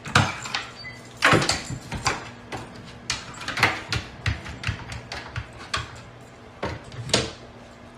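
A string of irregular knocks and bumps, about a dozen in all, over a faint steady hum.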